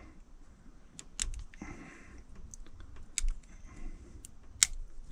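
Plastic clicks and rattling of an engine wiring-harness plug being worked by hand as its locking piece is pried up until it pops loose, with sharper clicks about a second in, around three seconds and near the end.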